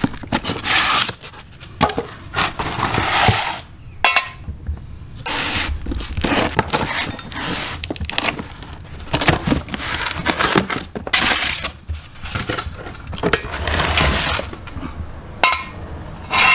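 Cardboard jack-stand boxes being slit, torn open and rustled, with scraping and the clinks and clanks of steel ratchet jack stands being handled and set down.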